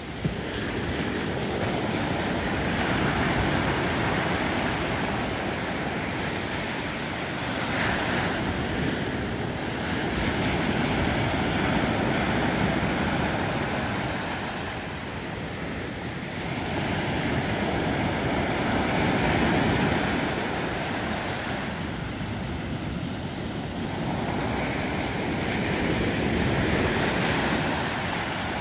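Atlantic surf breaking and washing up the beach: a continuous rush of water that swells and eases every several seconds as each wave comes in and spills out.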